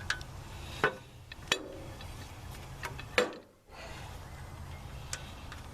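A few sharp metal clinks and knocks as a bolt is worked back into its hole on the tractor, over a steady low hum.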